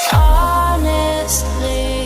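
Background electronic music: sustained synth tones over a deep bass drone, with a sweep at the start.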